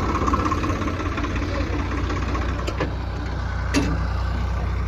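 Tractor diesel engine idling steadily, with two sharp clicks near the middle.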